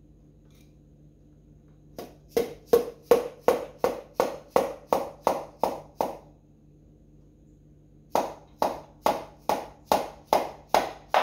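Piston being driven down into a cylinder bore of a Holden 253 V8 block with a rubber mallet. There are two runs of quick, evenly spaced taps, about three a second, with a short pause between them.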